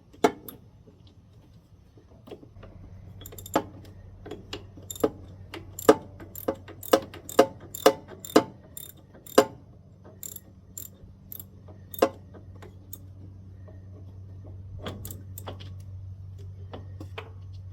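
A 13 mm wrench undoing the nut on a motorcycle starter's battery terminal: a run of sharp metallic clicks, about two a second, that stops about two-thirds of the way through, over a low steady hum.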